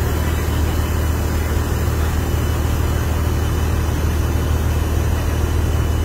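Combine harvester engine and unloading auger running steadily while threshed rice grain pours out of the unloading spout into a truck bed. A deep, even hum sits under a constant rushing noise.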